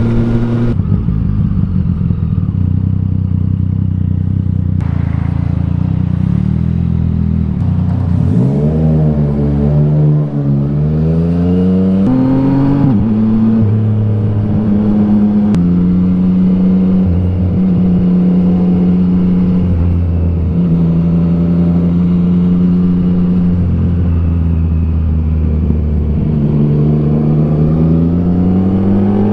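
Yamaha XSR900's three-cylinder engine under way, heard from the rider's seat. It runs steadily at first, then revs up about a quarter of the way in. Its pitch drops at a gear change, it runs steadily again, and it climbs once more near the end.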